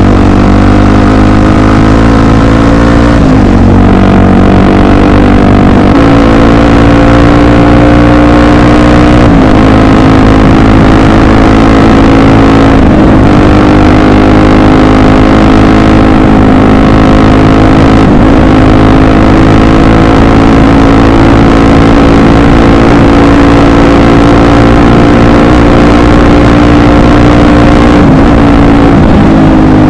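Honda XR 250 Tornado's single-cylinder four-stroke engine running under way at steady, loud revs. Its note dips briefly and shifts pitch every few seconds as the throttle changes.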